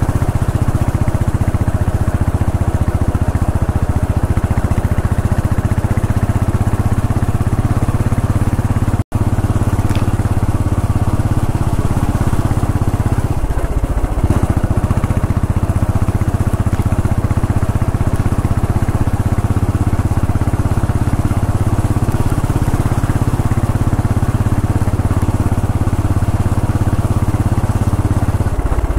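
Royal Enfield Bullet 500 EFI's single-cylinder engine running steadily under way, a low exhaust beat heard from the saddle. The sound cuts out for an instant about nine seconds in, and the note shifts briefly around fourteen seconds in.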